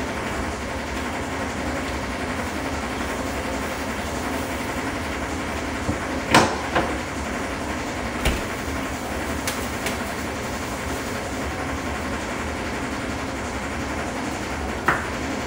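Steady rushing kitchen background noise with a low hum, broken by a few sharp knocks and clatters, the loudest about six seconds in and a last one near the end.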